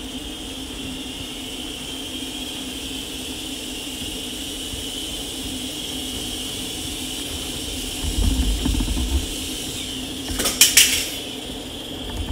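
Steady background hum with a faint high whine. About eight seconds in comes a low rumble, then about ten and a half seconds in a quick clatter of small hard clicks as toy cars come down and hit the floor.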